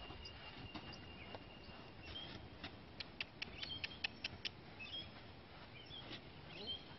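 A quick run of sharp, high clicks, about eight in a second and a half midway through, with a few faint bird chirps.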